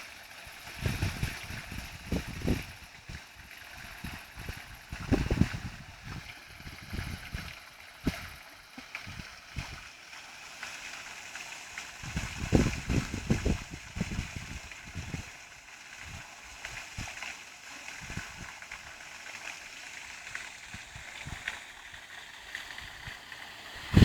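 Outdoor ambience: a steady hiss with wind buffeting the microphone in repeated short gusts.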